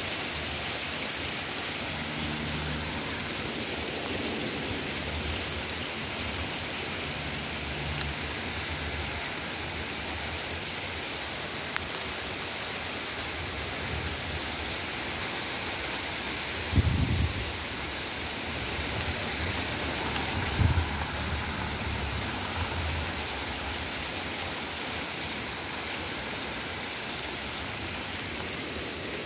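Hail mixed with rain pelting pavement and grass in a steady, dense hiss. Two short low thumps break through a little past the middle, the first the louder.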